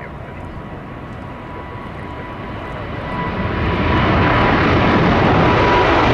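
Two GEnx turbofan engines of a Boeing 787-8 at takeoff power on climb-out: a broad jet roar that grows louder about three to four seconds in as the airliner comes overhead, with a thin steady tone running through it.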